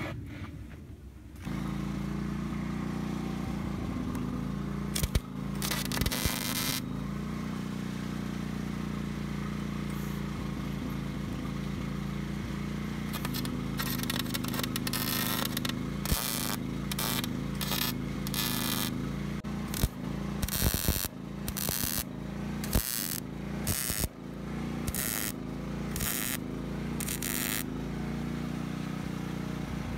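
Stick welding on a steel tube frame: the arc crackles and sizzles in a series of short bursts, each up to about a second long, mostly in the second half. A steady engine drone runs underneath from about a second and a half in.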